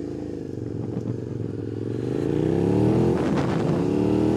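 A 2005 Suzuki SV650's V-twin, fitted with an aftermarket Beowulf exhaust can, pulling away and accelerating. The engine note rises, breaks off briefly at an upshift about three seconds in, then climbs again.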